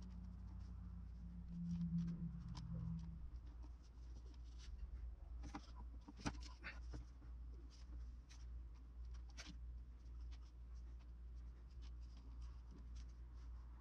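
Faint scattered taps, clicks and rubbing of hands working modelling clay on a sculpture, over a steady low hum.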